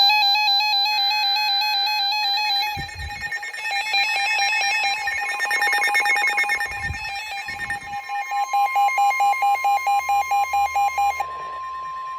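Several NOAA Weather Radios sounding a warning alert: the broadcast's short warbling data bursts in the first seconds, then the radios' rapid electronic beeping, about three or four beeps a second, over one steady long alert tone that starts about four seconds in. The beeping stops shortly before the end while the steady tone carries on.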